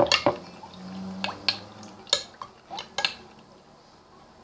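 Utensil clinking and scraping against a bowl while beaten eggs and milk are stirred together: a run of sharp, irregular clinks that thin out and stop near the end.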